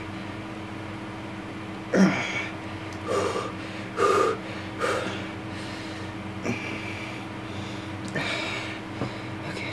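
A man's gasp and several short strained grunts and breaths while forcing a suture needle through the skin of his own finger. The loudest is a gasp about two seconds in that falls in pitch, followed by three shorter grunts, all over a steady low hum.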